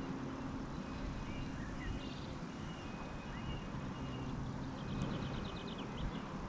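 A low steady hum over a rumble, with small birds chirping and whistling faintly above it and a quick trill about five seconds in.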